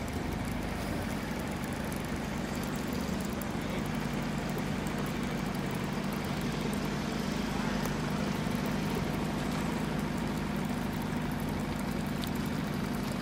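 A boat engine running steadily, a low even hum under a steady hiss.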